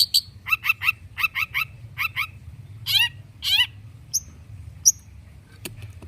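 Long-tailed shrike (cendet) singing a varied song: quick runs of short, sharp repeated notes, then a few curving, sliding calls about three seconds in and single high notes near the end.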